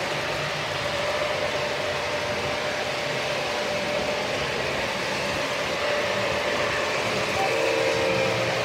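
O-scale model train rolling past on the track: a steady running noise of its motor and wheels, with a few short tones near the end.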